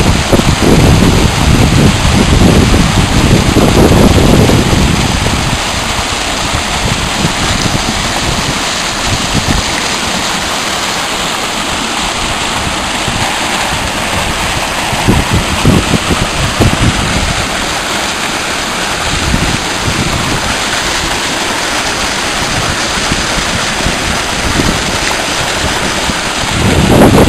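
A mountain river rushing steadily, with wind gusting on the microphone, heaviest in the first few seconds.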